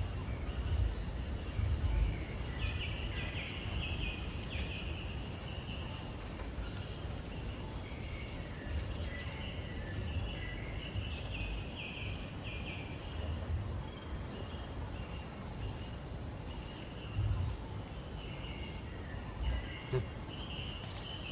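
Outdoor insect chorus: several steady high-pitched trills, with stretches of bird chirping over them and a low rumble with a few soft thumps underneath.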